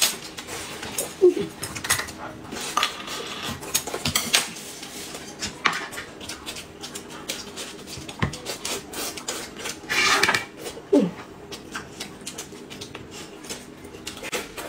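Chopsticks and tableware clinking at a meal: many light, irregular clicks and taps on plates and bowls.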